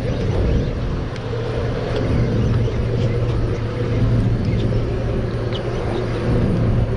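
Boat engines running at a steady low hum, with wind buffeting the microphone.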